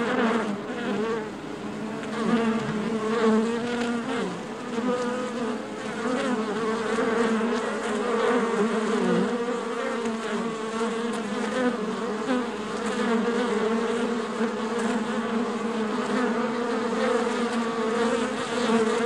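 A swarm of bees buzzing together, a steady wavering drone that runs on without a break.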